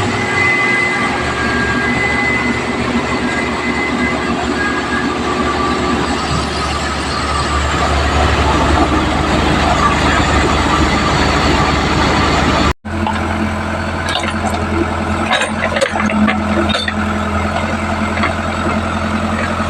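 New Holland rice harvester running: a steady, loud engine and machinery noise. It drops out for an instant about thirteen seconds in, then goes on as a steadier low hum.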